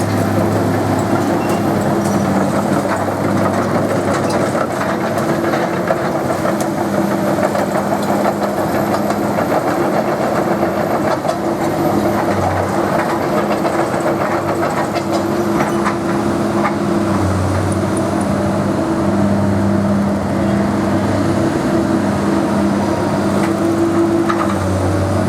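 Komatsu PC200 hydraulic excavator's diesel engine running steadily, its note swelling and easing every few seconds as the machine works, with scattered faint clanks.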